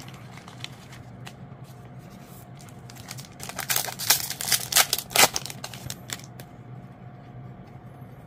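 A plastic-foil booster-pack wrapper crinkling as it is opened by hand. There are a few light ticks first, then a burst of crackling about three and a half seconds in that lasts a couple of seconds.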